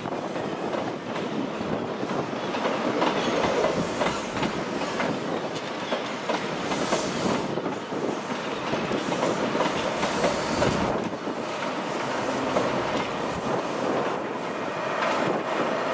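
A Class 43 HST passenger train rolling past at low speed, its coach wheels clattering over rail joints and pointwork in a steady run of clicks and rumble.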